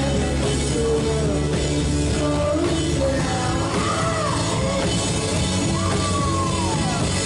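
Rock music playing, with a singing voice holding and sliding between notes.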